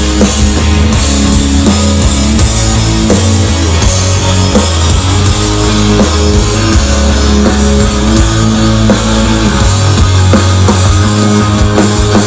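Instrumental rock passage: distorted electric guitars, bass and a drum kit playing loudly and steadily, with no singing.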